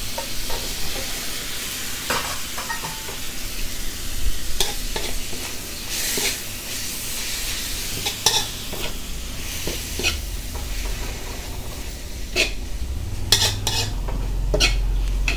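A spatula stirs and tosses glass noodles and scrambled egg in a hot wok. Frying sizzles steadily underneath, broken by irregular scrapes and knocks of the spatula against the pan.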